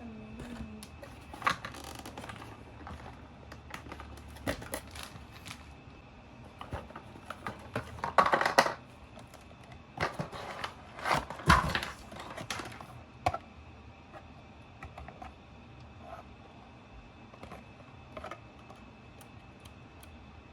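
Hands handling a small toy RC car and its packaging: scattered light clicks and taps, with two louder crinkly rustles about eight and eleven seconds in.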